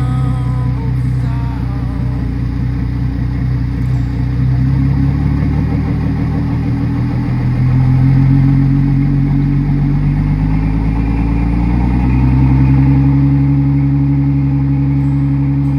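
Car engine running after a fuel pump assembly replacement, blipped with two slow, gentle revs, about halfway through and again near the end.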